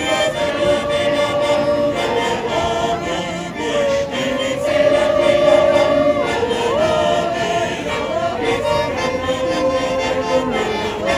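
Two Schwyzerörgeli (Swiss button accordions) playing a folk tune, with several voices singing along in long held notes that swoop between pitches.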